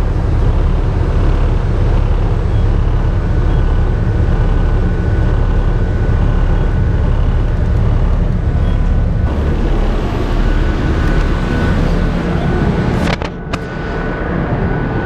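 Rescue boat under way at sea: a loud, steady rumble of engine, wind and water, dipping briefly about thirteen seconds in.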